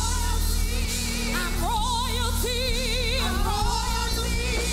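Gospel worship song: several women singing into microphones, with strong vibrato on held notes, over a live band with a steady bass line.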